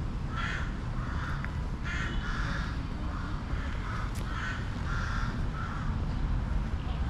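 Crows cawing in a series of about nine harsh caws a little over half a second apart, stopping about six seconds in, over wind rumbling on the microphone.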